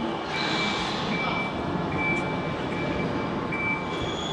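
Motion warning beeper on a mecanum-wheel omnidirectional mobile platform, sounding a repeating high beep about once every 0.8 s while the platform moves, over steady machine noise.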